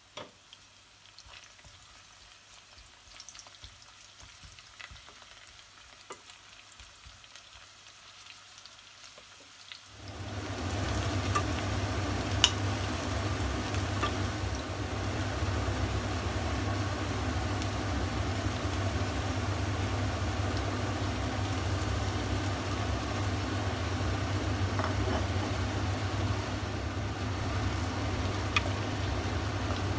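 Chopped onions and then chicken pieces frying in oil in a pot. A faint start gives way about ten seconds in to a sudden, loud, steady sizzle, with a few sharp taps of a wooden spoon against the pot as it is stirred.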